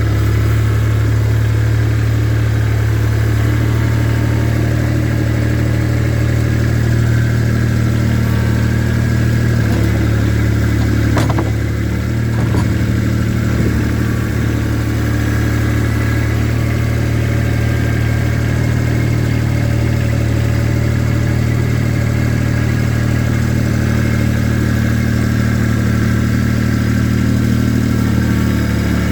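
Tractor engine running steadily at an even speed, with a single sharp knock about eleven seconds in.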